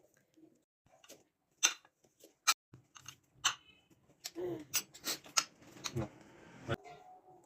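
A series of sharp clicks and knocks, coming faster and mixed with a rough scraping noise from about four seconds in, which cuts off sharply near the end.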